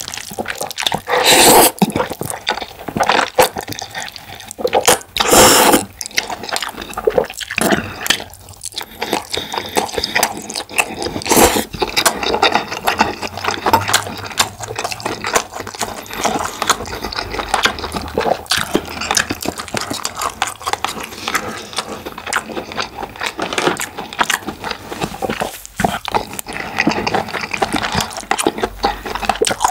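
Wet, sloppy sounds of noodles and black bean sauce being handled, with many short clicks and taps of utensils against the dish.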